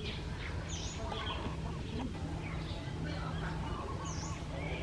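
Short, high animal calls, a scatter of chirps and squeaks with two quick falling squeals, over a steady low hum.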